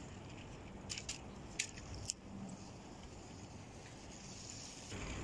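Four short, sharp clicks and jingles about one to two seconds in, over steady outdoor background noise with a low hum.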